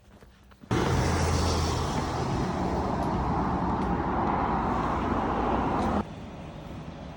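Steady vehicle noise: a loud rumble with hiss and a low hum that starts abruptly about a second in and cuts off abruptly near the end, leaving quieter background noise.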